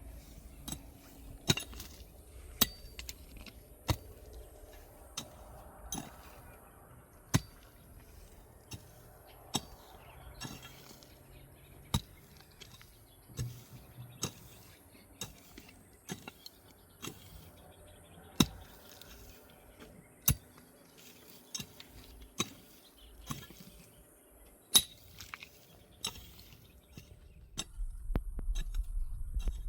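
A series of sharp, irregular clinks and taps of hard objects, roughly one every second, with a low rumble starting near the end.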